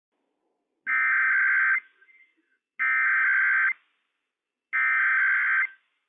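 NOAA Weather Radio EAS SAME header: three bursts of buzzy digital data tones, each just under a second long and about a second apart, encoding the start of a Required Weekly Test alert.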